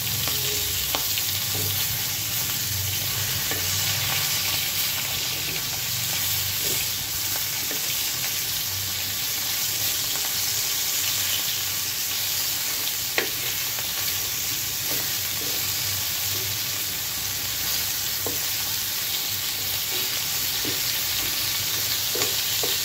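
Pigeon pieces sizzling steadily in oil in a frying pan, being lightly fried, while a spatula stirs and turns them with scattered scrapes and knocks against the pan; one sharp clink about 13 seconds in.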